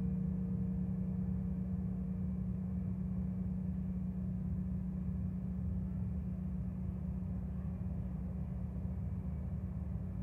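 Carillon bells left ringing after a chord, their low hum dying away slowly while a higher partial fades out within the first few seconds, over faint outdoor background noise.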